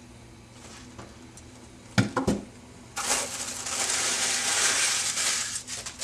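Three sharp clicks about two seconds in, then loud packaging rustling from about three seconds on as a boxed model part is unwrapped.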